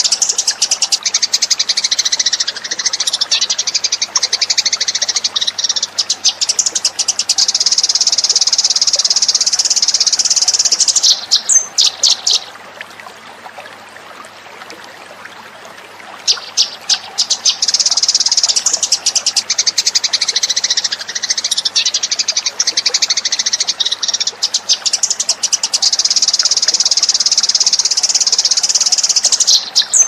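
Eurasian tree sparrows chirping rapidly and continuously: a lure call recording used to attract sparrows. The chirping breaks off for a few seconds about halfway through, then starts again.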